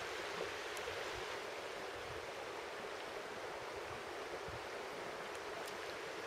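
Steady rush of a shallow, rocky river running over stones, an even hiss with no distinct splashes.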